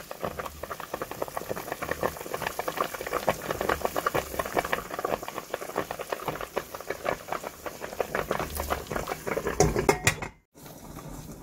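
Pot of pork kimchi stew bubbling on the stove, a dense run of small pops and gurgles from the boiling broth. It cuts off suddenly about ten seconds in.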